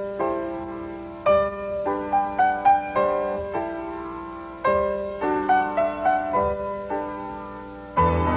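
Background music on solo piano: single notes and chords struck and left to fade. A fuller arrangement comes in near the end.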